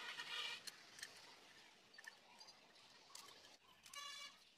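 Near silence: faint room tone with a few light clicks and two short high-pitched chirps, one at the start and one about four seconds in.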